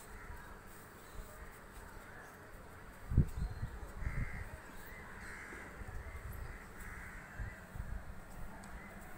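Crows cawing over and over, mostly from about four seconds in, with low thuds and rumbles underneath, the loudest a thud about three seconds in.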